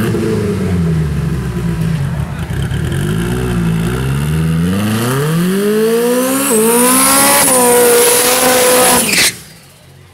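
Drag-racing pickup truck's engine idling and blipping at the starting line, then launching hard and accelerating, its pitch climbing with a gear change about six and a half seconds in. A high whine rises along with it. The sound cuts off suddenly near the end.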